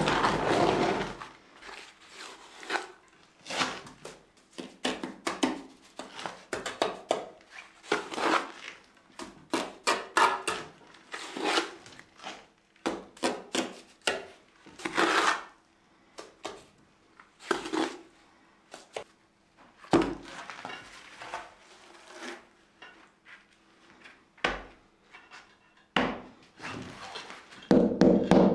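Natural stone floor slabs being handled and set: irregular knocks, clinks and scrapes of stone on stone and on the mortar bed.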